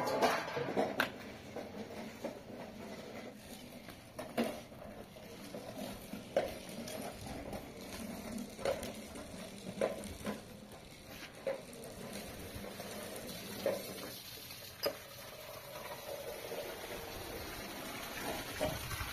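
Metal tray and lidded pot clattering as they are set down on a tiled floor, then scattered single knocks every second or two over a steady background hiss.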